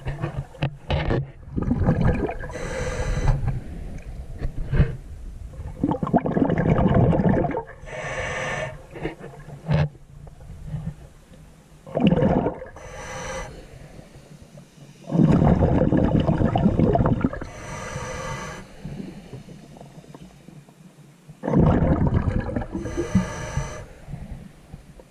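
Scuba diver breathing through a regulator underwater. Rushing exhaled bubbles come about five times, a few seconds apart, alternating with the regulator's shorter, higher-pitched inhale.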